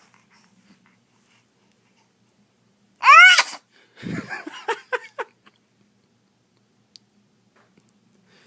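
An infant sneezing once, a single sharp, high-pitched sneeze about three seconds in, followed by a few short, softer sounds.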